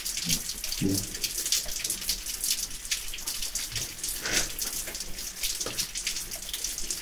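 Water trickling and dripping in a mine gallery: a steady, rapid patter of small drips and splashes.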